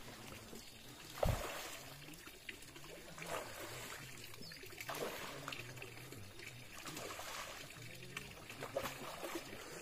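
Faint trickle of running water, with a few soft knocks and one louder thump about a second in.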